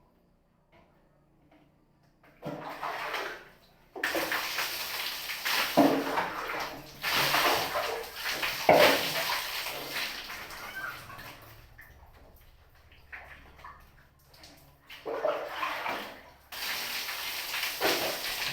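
Water pouring and splashing during bathing, starting about two seconds in and coming in several bursts with short pauses between them.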